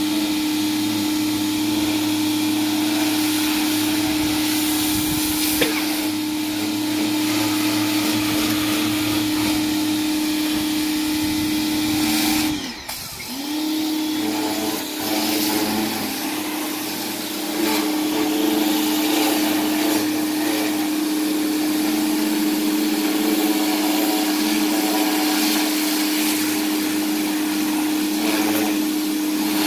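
Pressure washer running steadily under load, with a constant motor tone over the hiss of the spray. About halfway through the sound dips and falters for a moment, then picks up again.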